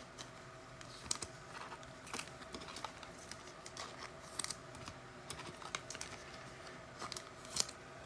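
Trading cards being handled and flipped through: faint, irregular light clicks and taps.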